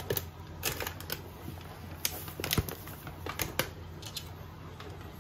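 Scattered light clicks and soft rustling of a measuring cup scooping semolina and flour and tipping it into a mixing bowl, over a steady low hum.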